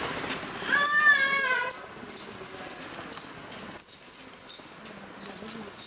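Metal chain on a walking elephant's legs clinking and jangling, with a short, high call that wavers and falls in pitch about a second in.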